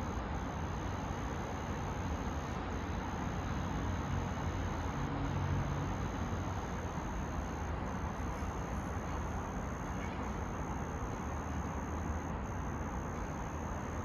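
Steady background noise: a low rumble with a constant thin high-pitched tone above it, with no clicks or distinct events.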